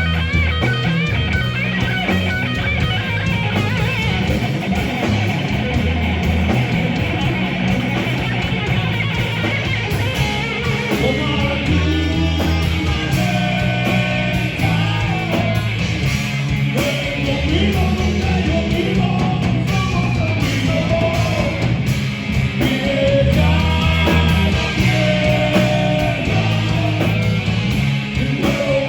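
Loud rock music with heavy electric guitars and drums, and some singing.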